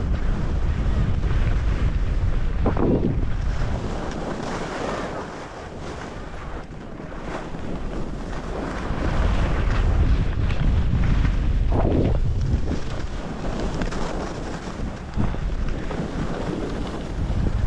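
Wind buffeting the microphone during a fast run down a ski slope, over a steady hiss of snow sliding under the rider, swelling and easing with speed, with two brief scrapes from turns.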